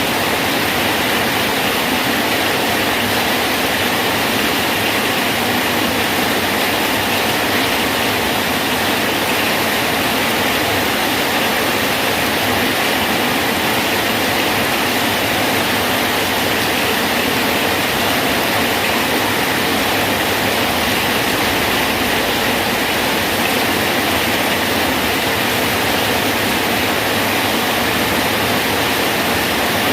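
Steady heavy rain falling on a bridge: a dense, even hiss that does not change.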